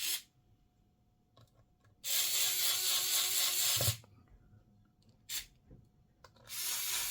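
Electric screwdriver running twice for about two seconds each, driving screws into a laptop's plastic rear cover, with light clicks of screws and bits being handled between.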